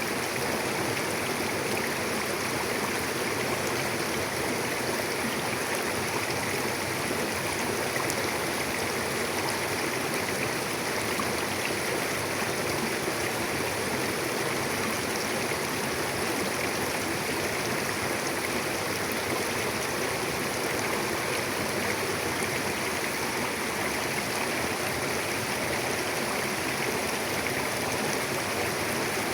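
Mountain river flowing: a steady, even rush of water over rocks.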